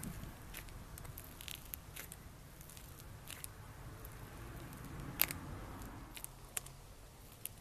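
Crunchy slime being handled, giving scattered sharp crackles and pops, the loudest a little past five seconds in.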